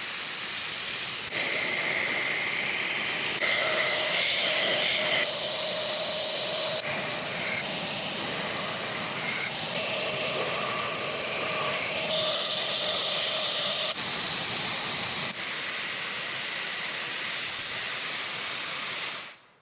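Steel knife blade being ground on a power grinder: a steady grinding hiss with high whining tones, its pitch and tone changing abruptly every second or two as short clips are cut together, then stopping suddenly near the end.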